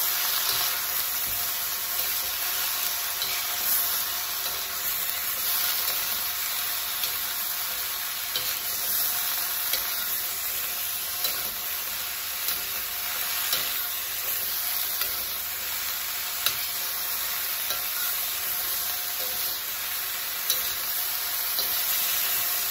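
Broccoli sizzling in a hot wok while a metal spatula stirs and turns it, with a sharp scrape or tap of the spatula against the wok now and then.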